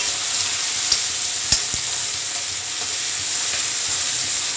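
Carrots, green peas and onion sizzling in hot oil in a metal kadhai as a metal spatula stirs them, with a few sharp clicks of the spatula against the pan, about one and a half seconds in.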